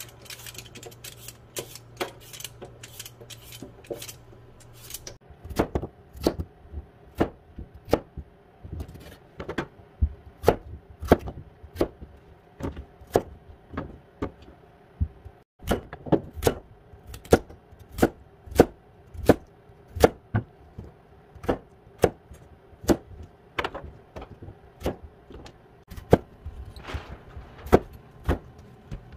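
A kitchen knife chopping potato, carrot and onion on a plastic cutting board: sharp knocks of the blade hitting the board, about one to two a second. The first few seconds hold lighter scrapes of a vegetable peeler on a potato.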